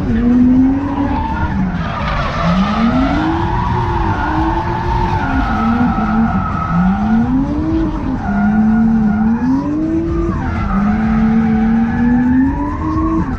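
Nissan Skyline ER34's turbocharged straight-six at full drift pace, its revs climbing and dropping again and again as the car is thrown through the corners, with the tyres squealing. Heard from inside the cabin.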